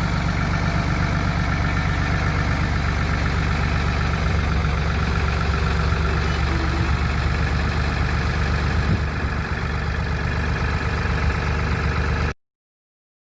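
A bus engine idling steadily, its deep hum holding an even pitch, until it cuts off suddenly near the end.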